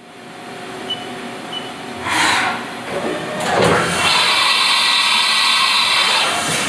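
Five-axis CNC machining centre running through an automatic tool change. There is a hiss about two seconds in, then a steady whine from about four seconds.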